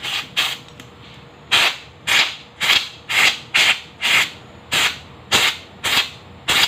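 Compressed-air blow gun firing short blasts of air through a motorcycle's panel air filter element to blow out the dust, about a dozen quick blasts at roughly two a second.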